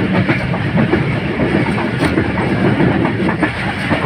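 Passenger train running at speed, heard from aboard: a steady rumble of wheels on rails with a few sharper clicks from the rail joints.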